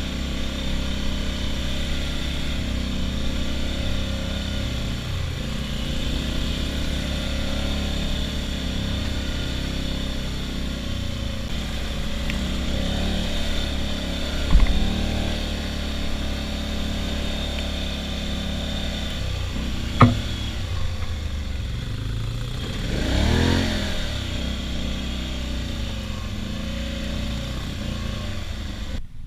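ATV engine running steadily on the move. Two sharp knocks come about halfway and two-thirds through, and the engine revs up and back down shortly after. The sound cuts off abruptly at the very end.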